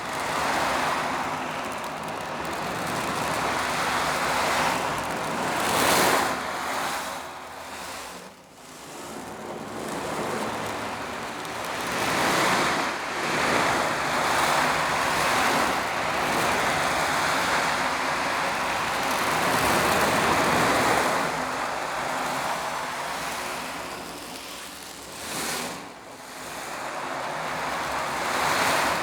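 Foley imitation of sea surf: a rushing hiss that swells and falls back in slow surges every few seconds, like waves washing onto a beach.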